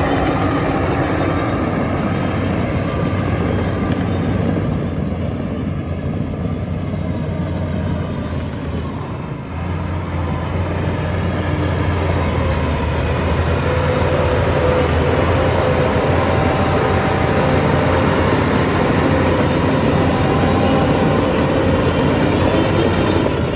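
Heavy bulldozer diesel engine running under load as it works, a steady low drone that eases briefly about nine seconds in and then holds again.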